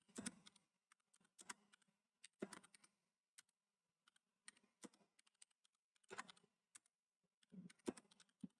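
Faint keystrokes on a computer keyboard, irregular and sparse, coming in small clusters of a few clicks with pauses between.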